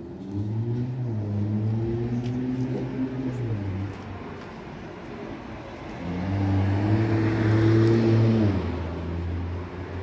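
Two cars driving past on a street, engines running: the first about half a second in, the second louder from about six to eight and a half seconds in, with a low engine hum between.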